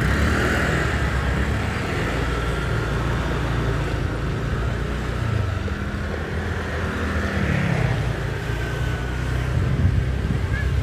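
A vehicle running on the move: a steady low engine drone with road noise.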